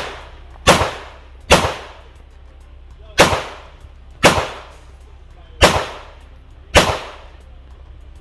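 Pistol shots during a practical-shooting stage: six single shots at uneven spacing, a pair about a second apart, then gaps of one to two seconds. Each shot is loud and sharp and dies away over about half a second.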